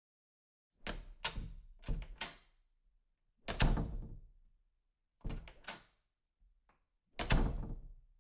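A series of sharp knocks and thuds, some in quick groups of two to four, each fading out over about half a second, with silence between; the heaviest two come about three and a half and seven seconds in.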